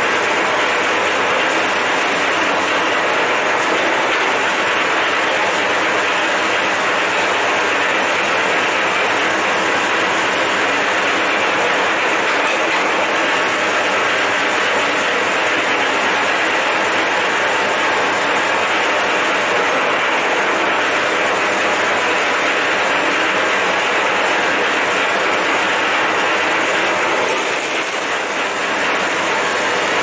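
V-KOF electric wire stripping machine running steadily, its motor driving the feed rollers and slitting blade as scrap cable is fed through. A loud, unbroken mechanical noise that drops away at the very end.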